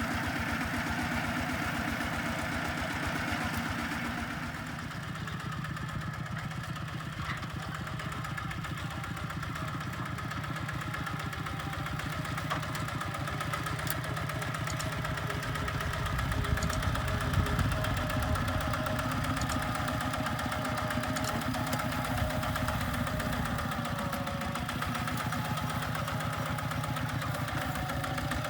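Kubota RT140 single-cylinder diesel engine running steadily with evenly spaced firing strokes, growing a little louder for a few seconds past the middle.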